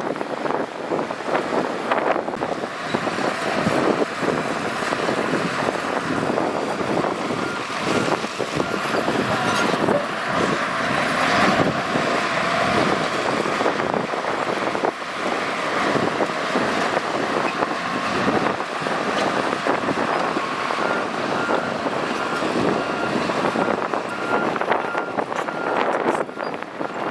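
A Shantui bulldozer's diesel engine runs steadily under load, with frequent knocks and clanks from the machine at work. A faint, evenly repeating beep joins in during the second half.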